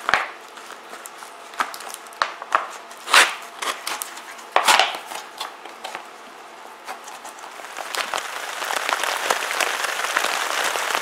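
Plastic MRE bag crinkling and rustling in short bursts as a stick is pushed through slits cut in it and the bag is opened out. From about eight seconds in, steady rain patters on a tarp.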